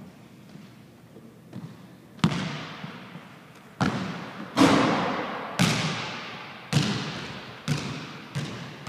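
Basketball bouncing on a hardwood gym floor: about seven loud bounces roughly a second apart, starting about two seconds in, each ringing on in the echo of the empty gym.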